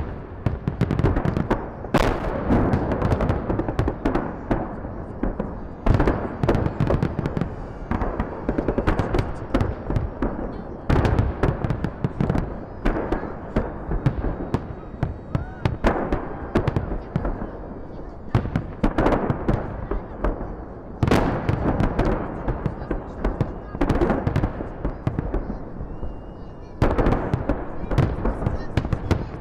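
Fireworks salute going off in a continuous barrage of overlapping, echoing bangs, with the heaviest volleys about every five seconds.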